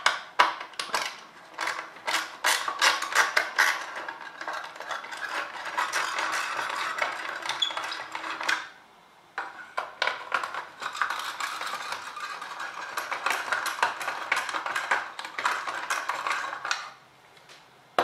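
Hand screwdriver backing out two screws that hold the CPU fan assembly in a Dell OptiPlex 745's steel case: a busy run of small metallic clicks and scrapes for each screw, with a brief pause between them.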